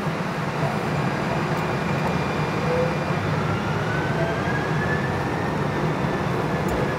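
Interior of a moving light rail car: a steady rumble of wheels on rails and running gear, with a faint whine that rises in pitch midway.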